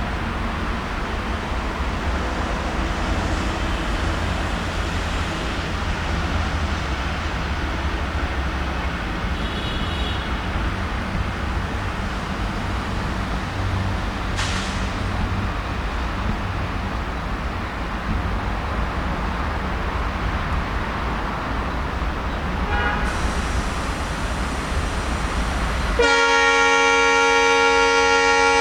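ALCo-built Indian Railways diesel locomotive running with a steady deep engine rumble. Near the end a loud multi-tone air horn sounds for about three seconds.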